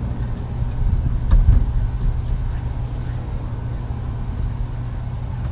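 A steady low engine rumble with a faint hum over it, and one brief knock a little over a second in.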